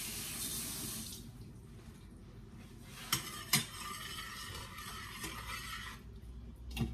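A metal spoon clinking twice against a stainless-steel pot, then scraping and stirring inside it. There is about a second of hiss at the start.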